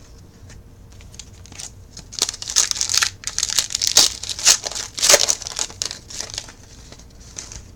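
Baseball card pack wrappers crinkling and tearing as packs are opened by hand, in irregular rustling bursts that are loudest in the middle.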